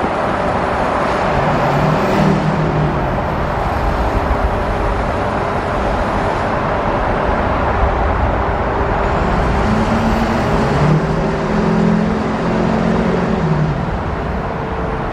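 Steady road and traffic noise from a pickup truck driving through a road tunnel, with a deeper engine drone that swells and fades twice.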